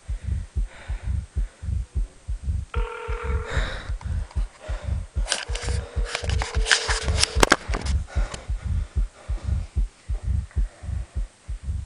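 Mobile phone call tones from a flip phone held to the ear: a short steady tone about three seconds in, then a longer tone with crackly clicks from about five to seven and a half seconds. Under it all runs a rapid, low throbbing pulse.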